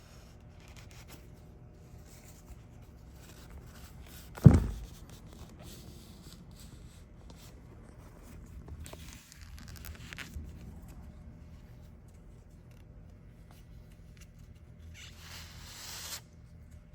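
Dry paper towels rustling and rubbing as they wipe excess sealant off a fiberglass surface, in a few short bouts. There is one sharp thump about four and a half seconds in, the loudest sound.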